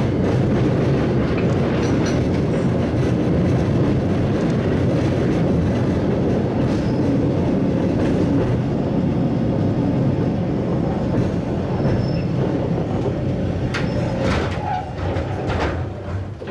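Hakodate City Tram's Type 30 car 39, the 'Haikara-go' streetcar, running along street track, heard from its front platform as a steady, loud rumble of wheels on rails. A few sharp clicks come near the end.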